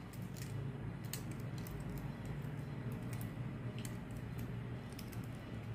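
Light, irregular small metallic clicks and taps of a Favre Leuba alarm clock movement's parts (brass wheels and steel spring) being fitted by hand between its plates, over a steady low hum.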